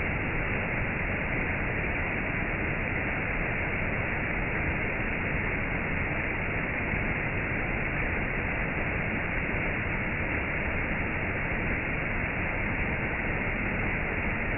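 Steady rushing water, an even unbroken hiss with no changes.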